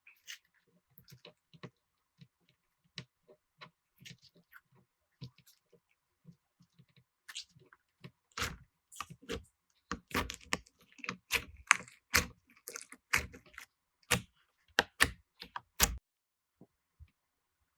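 Slime being worked by hand, making irregular clicks and pops. They are sparse at first, then come faster and louder from about halfway, and stop shortly before the end.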